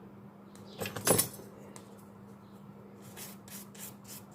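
A tool clicking and scraping against a phone's broken screen assembly while the earpiece mesh is pried off: a couple of clicks about a second in, then a quick series of short scrapes near the end.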